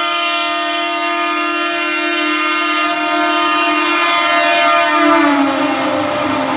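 Indian Railways MEMU electric multiple unit sounding a long, loud horn as it runs through the station. The held note drops in pitch about five seconds in as the cab passes, then gives way to the noise of the coaches running by.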